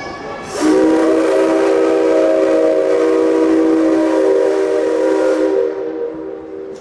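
Whistle of the C57 135 steam locomotive, blown once in a long chord of several tones sounding together. It holds for about five seconds, then dies away.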